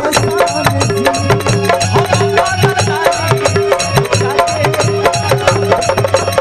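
Instrumental interlude of Bhojpuri stage-show music: a fast, steady drum beat with a repeating melodic line and a pulsing bass.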